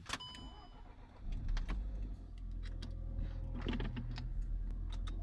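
A car engine starting about a second in and settling into a low, steady idle, with scattered sharp clicks and knocks over the running engine. A single metallic click with a brief ringing opens it. This is the abnormal noise the owner set out to record.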